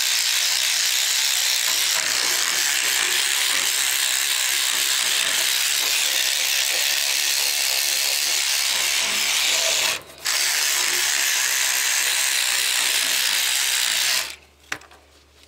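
Small electric scrub brush running steadily, its spinning head scrubbing cleaning paste against a painted radiator. It cuts out briefly about ten seconds in, then switches off near the end.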